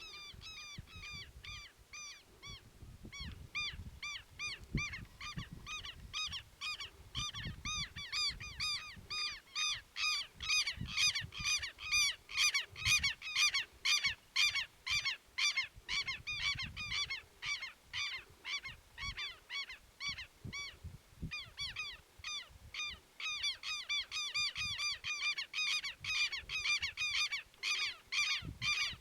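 Dogs yelping over and over in rapid, high-pitched cries, about three to four a second, as they give chase. Low irregular rumbling and thumps run underneath.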